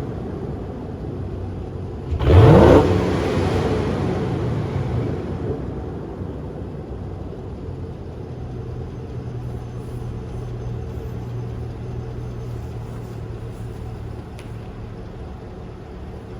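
Car engine revved once about two seconds in, its pitch climbing sharply, then falling back to a steady low idle. Small exhaust snaps and crackles come as the revs drop.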